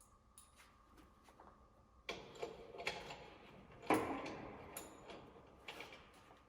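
Hand tools knocking and clanking against metal parts during work on a car's front suspension and axle: several separate knocks, the loudest about four seconds in.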